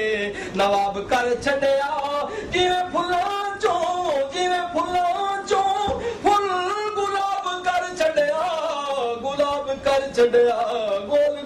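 A man singing unaccompanied, holding long, wavering, ornamented notes, with sharp taps scattered through the song.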